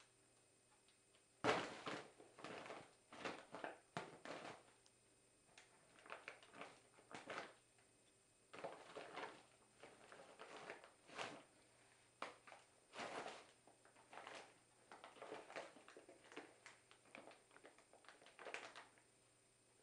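A kitten scrabbling about inside a fabric tote bag: irregular bouts of rustling and scratching, the loudest about a second and a half in.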